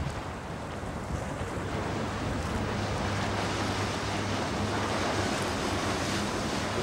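Wind buffeting the microphone and river water noise, with a passing tour boat's engine drone coming in about three seconds in and growing gradually louder.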